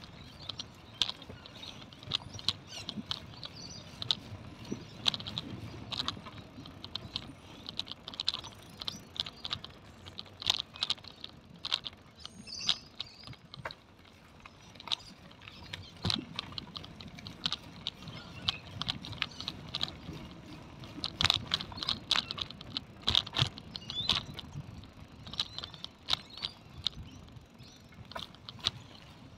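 Bicycle rattling as it rolls over a concrete and paver footpath: irregular clicks and ticks in quick, uneven clusters over a low tyre rumble.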